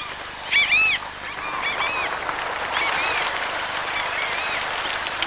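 A large flock of waterbirds calling: repeated short high calls that rise and fall in pitch, thickest and loudest in the first second and then more spread out, over a steady rushing noise.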